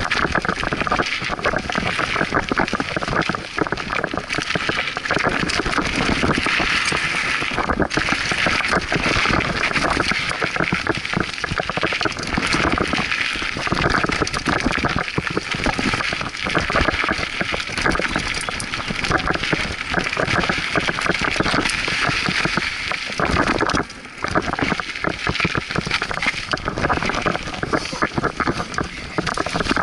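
Scott Aspect 35 mountain bike ridden fast down a dirt singletrack: tyre and rolling noise with constant rattling and jolts from bumps in the trail, under heavy wind buffeting on the action camera's microphone. The noise briefly eases about two-thirds of the way through.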